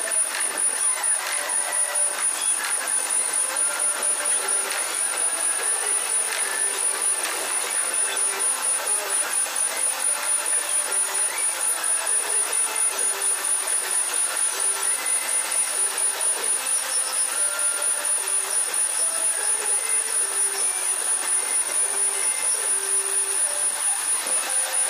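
Milling machine running a multi-tooth form cutter through a worm-gear blank: a steady cutting and machine noise with a quick, even pulsing and a thin high whine throughout.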